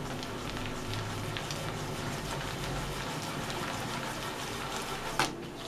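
A hand creaming vegetable shortening and sugar in a glass bowl: a steady rubbing and squishing against the glass with many small crackles. A single sharp click about five seconds in.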